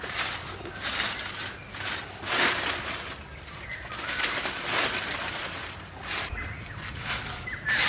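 Dry leaf litter swept aside by hand in quick, repeated swishes, a rustling scrape with each stroke. A bird chirps near the end.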